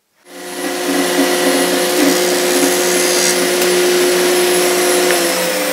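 Festool table saw running steadily, with its dust extractor drawing through the hoses, as a board is fed through to cut a rebate. It starts about a quarter second in, and one hum tone drops away near the end.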